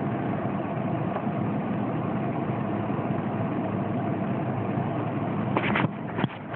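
Steady engine and road noise of a car, heard from inside the cabin. Near the end a few sharp knocks and rubbing as the camera is handled and moved, after which the noise is a little quieter.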